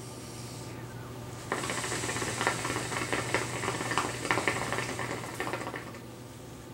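Water in a hookah vase bubbling through a long draw on the hose, a dense crackling gurgle. It starts about a second and a half in and stops about four seconds later.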